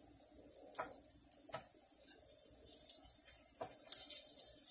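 Faint sizzling on a hot oiled grill as carrot fries are laid on it, with a few light taps.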